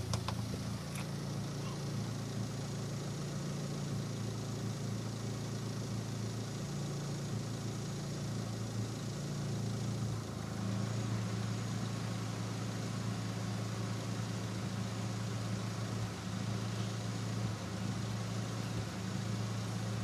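Turbocharged Nissan Micra engine and exhaust running at a steady warm idle, with a few brief uneven moments. This is the random exhaust cough or misfire at warm idle that the owner suspects comes from the larger SR20 injectors he fitted.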